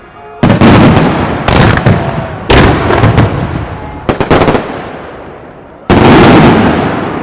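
Aerial firework shells of a starmine finale bursting one after another: five loud booms, each dying away with a long echo, and a quick run of sharp cracks in the middle.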